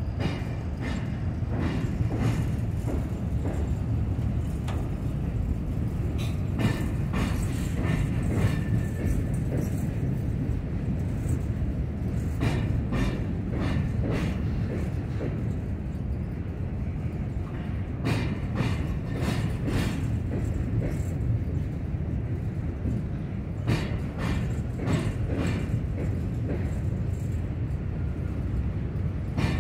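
Freight train's covered hopper cars rolling past with a steady low rumble, broken every few seconds by clusters of clicks and knocks as the wheel sets pass over rail joints.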